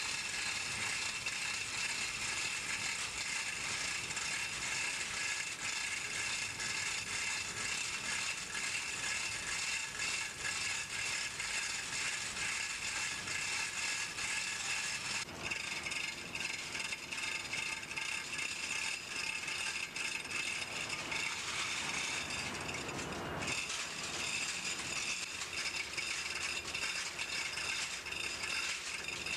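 Continuous mechanical rattling with dense, rapid clicking and a steady high ringing, from tools or machinery during work on the engine. It changes character about halfway through and again near the end.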